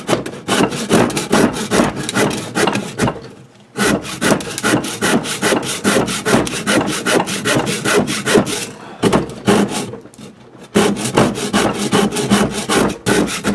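A hand rasp cutting along the belly of a wooden rifle buttstock in rapid back-and-forth strokes, shaping it down to the level of the toe plate. The rasping stops briefly a little under four seconds in, and again for about two seconds past the middle.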